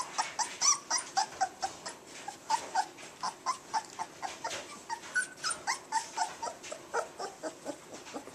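Four-week-old Labrador retriever puppies yipping and whimpering during play, a quick run of short high calls about three or four a second.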